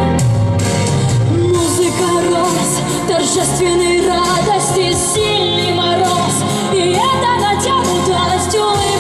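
A song: a singing voice with vibrato over a sustained instrumental accompaniment.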